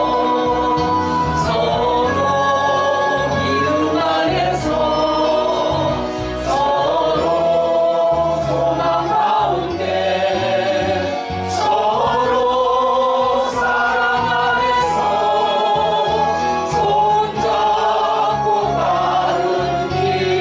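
Korean gospel song: sung melody with vibrato over an instrumental accompaniment with a moving bass line and occasional cymbal-like strokes.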